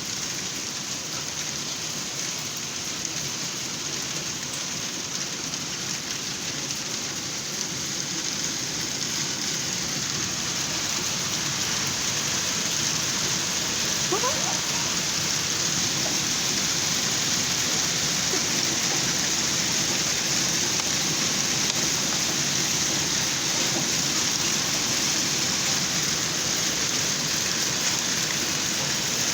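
Steady rain falling, getting a little louder around ten seconds in.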